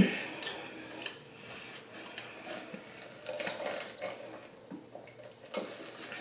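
Chewing and mouth sounds of someone eating chicken wings: soft, scattered clicks and smacks about a second apart.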